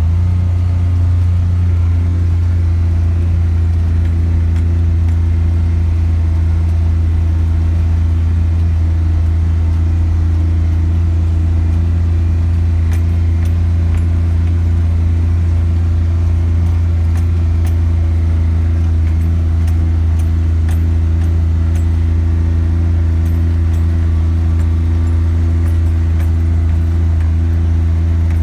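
Polaris Ranger Diesel's Kohler 1028 cc three-cylinder diesel engine running at a steady speed as the vehicle drives, heard from inside the cab as an even low drone.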